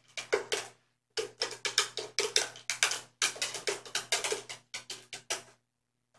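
A quick run of percussive hits, drum-like and music-like, several a second, with a short break about a second in, stopping about five and a half seconds in.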